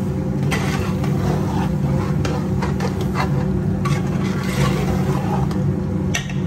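A metal spoon scrapes and clacks against the sides and bottom of a large aluminium pot as a thick curry is stirred, in short irregular strokes. Under it runs a steady low hum.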